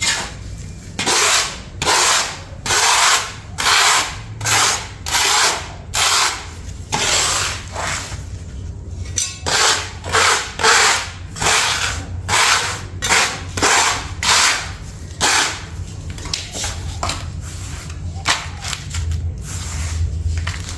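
Repeated rubbing strokes, roughly one or two a second, each about half a second long, giving way to lighter, shorter clicks and knocks in the last few seconds.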